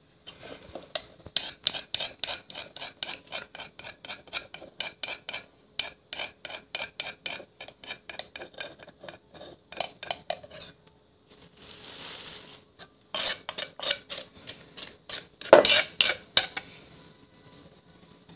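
Metal spoon stirring and scraping chilli dipping sauce in a clay mortar, clinking against the mortar's sides about three or four times a second, with a short scrape about two-thirds through and a few louder knocks near the end.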